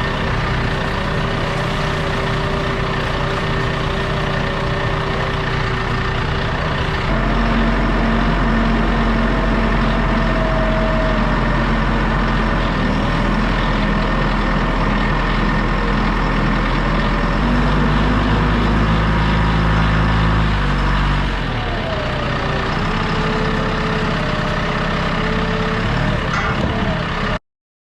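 A heavy engine running steadily. About seven seconds in it revs higher and louder, then settles back around twenty-one seconds, and the sound cuts off suddenly near the end.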